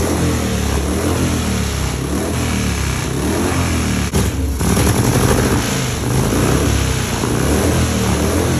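Harley-Davidson Evolution V-twin with a hotter, longer-duration cam, 10:1 compression and straight pipes, running loud at idle with slow swells in pitch. The level jumps briefly about four seconds in.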